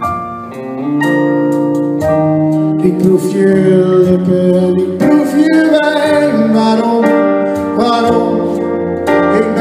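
A live band playing a slow song, with bass guitar and keyboard, and a man singing into the microphone. The music dips briefly and swells again about a second in.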